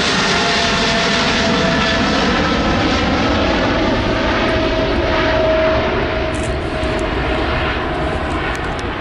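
Emirates Boeing 777 climbing away after takeoff, its twin jet engines at climb thrust: a steady loud roar with a whining tone that sinks slightly in pitch, growing fainter after about six seconds as the jet moves away.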